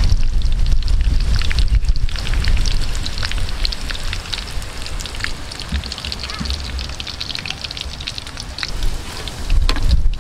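Hot oil in a wok sizzling and crackling around breaded balut eggs as they deep-fry, a dense run of small pops throughout, with a low rumble underneath that is strongest near the start and the end.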